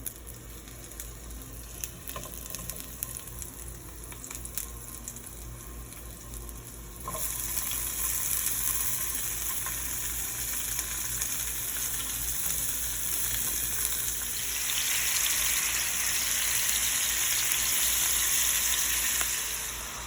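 Chopped onion sizzling in hot oil in a frying pan, with a few light clicks of utensil against pan. About a third of the way in the sizzle suddenly becomes much louder, and it grows louder again past the middle.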